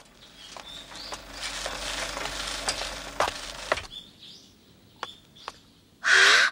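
Wooden handcart rolling and rattling over the road, swelling for about three seconds and fading out, with scattered sharp clicks and knocks. A few short chirps, and a brief loud swish with a falling tone near the end.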